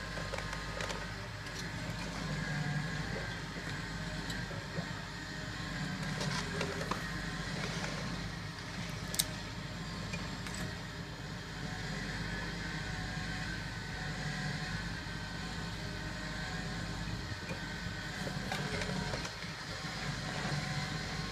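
Hydraulic demolition excavator's diesel engine running steadily, its note swelling under load several times as the arm works at the concrete frame, with scattered knocks and a sharp crack about nine seconds in.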